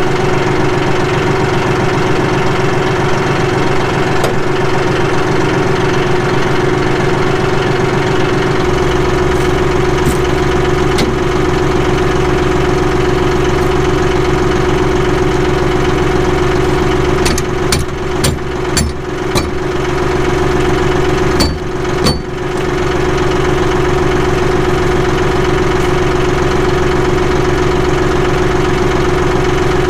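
John Deere 5055E tractor's three-cylinder diesel engine idling steadily, its low rumble growing heavier about nine seconds in. A cluster of sharp knocks and clicks comes a little past halfway.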